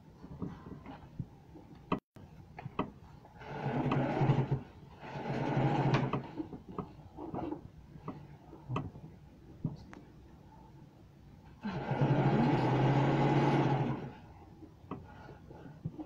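Electric domestic sewing machine stitching in three runs: two short runs of about a second each, then a longer one of about two seconds near the end. Small clicks from handling the work come between the runs.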